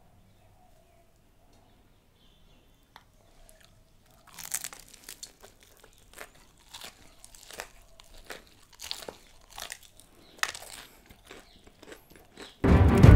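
Close-up crunching of a bite into KFC Hot & Crispy fried chicken's crisp breading, then chewing with a few sharper crackles; it starts about four seconds in after a quiet stretch. A loud burst of music cuts in right at the end.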